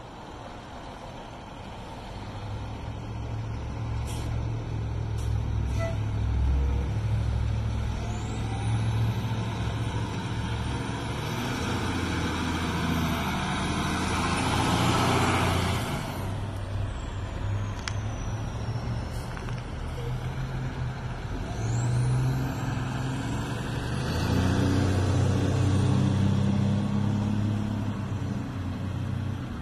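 Fire engine's diesel engine rumbling as the truck pulls out and drives past, loudest about halfway through, then swelling again near the end. Faint high siren tones rise and fall several times over it.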